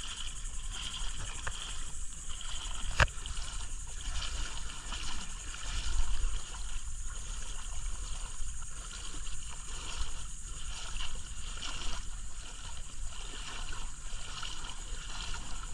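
Water gurgling and lapping around a kayak, with one sharp click about three seconds in.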